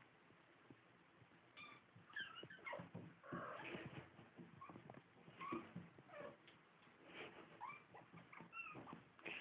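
Faint cat mewing: a string of short, high-pitched mews with bending pitch, starting about a second and a half in and going on to the end.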